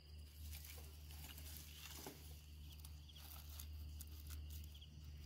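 Near silence: a steady low hum with a few faint, scattered soft ticks.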